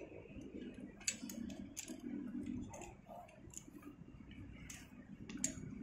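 Several scattered sharp metallic clicks and clinks of carabiners and rope-access hardware being handled at a harness.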